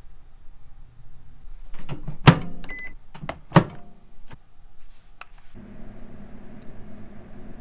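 Microwave oven being worked: two clunks of the door a little over a second apart with a short electronic beep between them. A steady hum sets in near the end.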